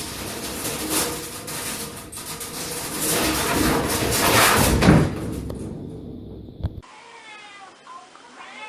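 Loud noisy clattering with knocks, loudest about five seconds in. After a sudden cut near the end, a cat meows.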